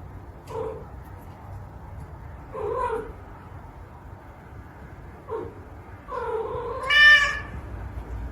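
A cat meowing four times, short calls spaced a couple of seconds apart, then a longer, louder drawn-out call about six seconds in.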